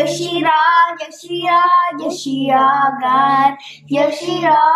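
A young girl singing a short sign-off chant of the channel's name in sung phrases with held notes and brief breaks between them.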